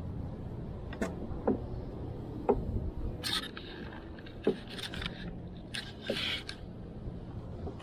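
Metal hive tool prying and scraping at the wooden frames of a beehive box: a few sharp knocks and creaks as frames are levered loose, with short scraping strokes in between.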